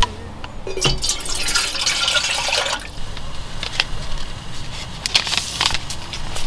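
Water poured from a plastic bottle for about a second and a half, a steady splashing fill, followed by a few sharp clicks and crinkles of a paper sachet being handled.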